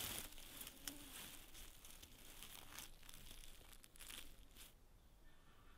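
Faint rustling and crackling of dry grass stems as a hand parts them to reach a mushroom at ground level, dying away about four and a half seconds in.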